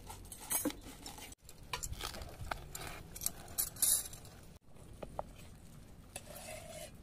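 Table cutlery clinking: a knife cutting food on a plate and a spoon against a glass dish, a scatter of light, irregular clinks and scrapes.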